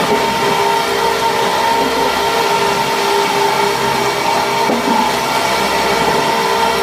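Wood shaving production line machinery running steadily: an even mechanical drone with a steady whine in it.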